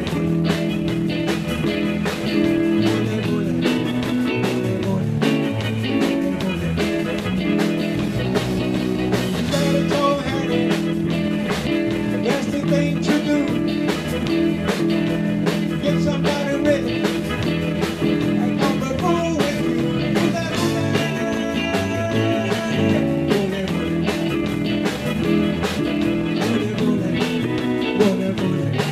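Live rock and roll band playing: electric guitars, bass guitar and drum kit, with a steady beat throughout.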